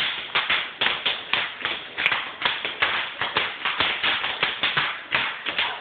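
Bubble wrap popping under toddlers' stamping and jumping feet: a rapid, irregular string of sharp pops, several a second.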